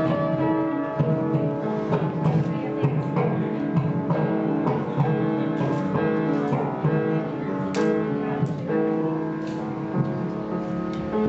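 Instrumental music: a run of sustained pitched notes, with a sharp click about eight seconds in.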